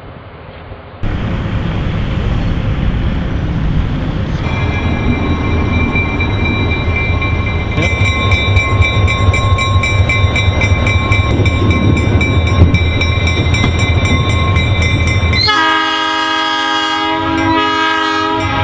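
Diesel locomotive passing close, its engine and wheels making a heavy low rumble, with steady high squealing tones over it. About 15 seconds in, its air horn sounds one long chord that lasts to the end.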